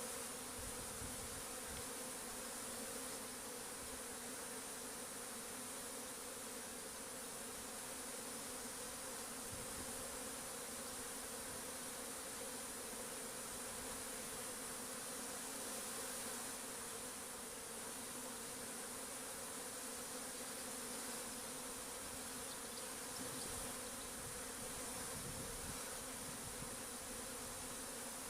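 A swarm of honey bees buzzing, a steady continuous hum of many wings.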